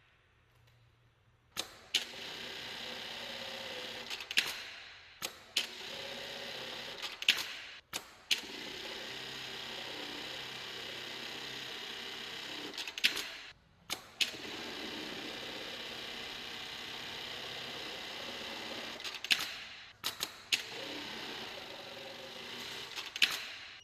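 Sunstar SPS/B-B1254-MA-22 programmable pattern sewing machine sewing, running steadily in several long stretches. Sharp clicks and short breaks fall between the sewing cycles.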